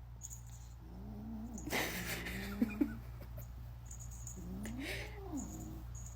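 A cat meowing: a few drawn-out calls that rise and fall in pitch, with two sharp clicks about two and a half seconds in.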